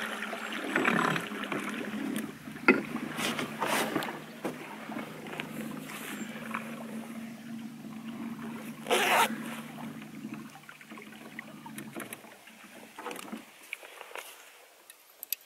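Small boat's motor running with a steady hum, stopping a few seconds before the end, with a few knocks against the boat along the way.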